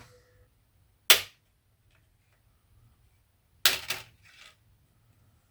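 Two sharp plastic snaps as instrument-cluster gauge needles are prised off their spindles, one about a second in and another past the middle followed by a couple of lighter clicks.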